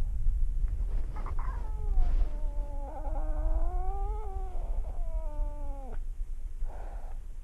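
Domestic cat caterwauling: one long, drawn-out yowl of about five seconds that wavers up and down in pitch and drops off sharply at the end, the warning howl of a standoff between two cats before a fight. A shorter, fainter cry follows near the end.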